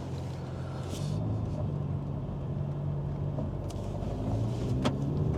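Alpine A110's mid-mounted four-cylinder engine running just off idle, its note stepping up a little about a second in and again near the end, with a couple of faint clicks.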